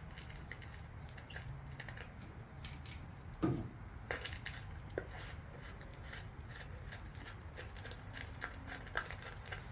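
Hand tools clicking and clinking against metal while the valve cover bolts on a Chevy 350 V8 are loosened, in irregular small knocks with one louder knock about three and a half seconds in.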